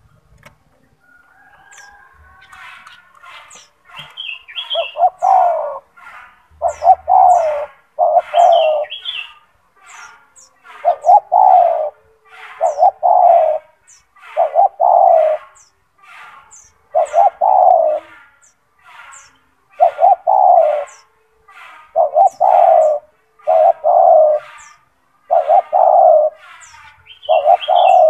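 Spotted dove (tekukur) cooing: a steady run of loud, low coos, a note every second or so, often in pairs. It starts softly and builds to full voice from about four seconds in. Faint, short, high chirps from a small bird sound throughout.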